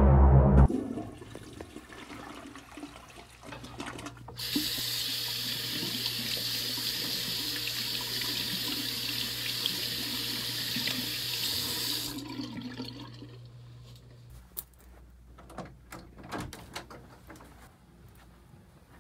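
Bathroom sink tap running, with hands being washed under the stream: the water comes on loudly about four seconds in and is shut off about twelve seconds in. A few light clicks and knocks follow near the end.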